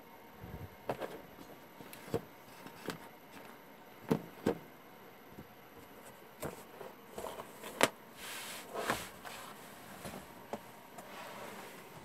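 Irregular clicks and knocks with short stretches of rustling: handling noise as the camera is moved about. No steady motor hum is heard.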